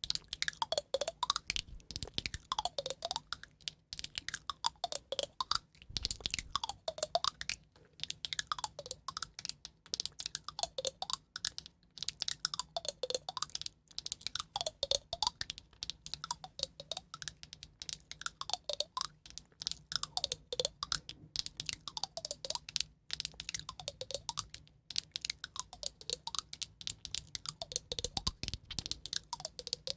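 Rapid, irregular light tapping and clicking, an ASMR trigger, with a short gliding tone that dips and rises about every two seconds.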